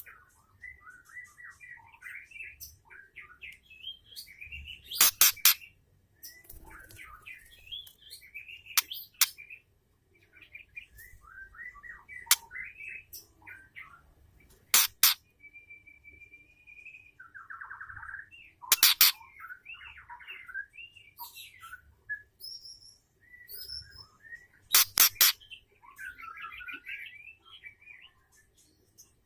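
Female white-rumped shama calling: a string of short chirps and whistled notes, with a held whistle about halfway through, broken every few seconds by loud, sharp clicking notes in quick pairs or threes.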